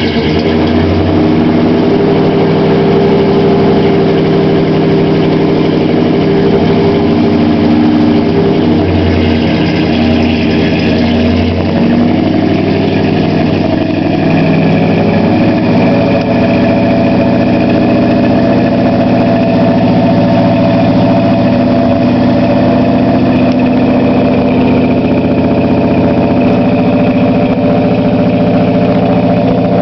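AMC 360 V8 in a 1983 Jeep J-10 idling steadily, heard at the exhaust while still cold from a cold start. The pitch shifts a little between about ten and sixteen seconds in.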